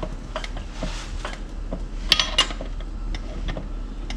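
Metal parts and tools clinking and clicking, with two louder ringing metal clinks about two seconds in.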